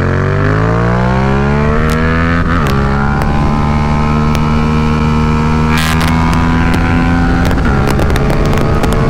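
Yamaha MT-07's parallel-twin engine pulling hard under acceleration: it climbs in pitch, drops at an upshift about two and a half seconds in, holds, then drops again at a second upshift about seven and a half seconds in. Wind noise and buffeting clicks on the microphone run underneath.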